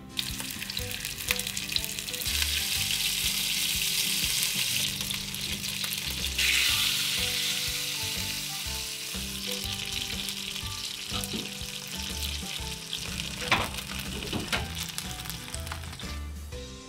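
Flour-dusted cod fillet sizzling as it pan-fries in oil in a nonstick frying pan. The sizzle swells about six seconds in and then slowly eases, with one sharp clack about thirteen seconds in.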